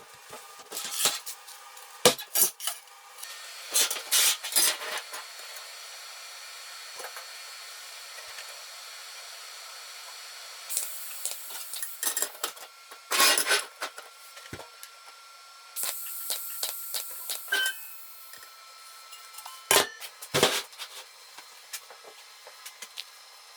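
Metal parts and tools being handled on a workbench: scattered knocks, clanks and clinks, with two short stretches of hiss a third and two-thirds of the way through.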